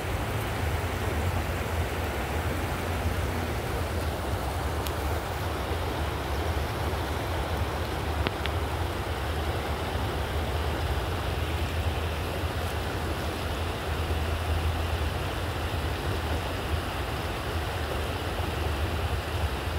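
Steady rushing of a flowing stream, with a low rumble underneath.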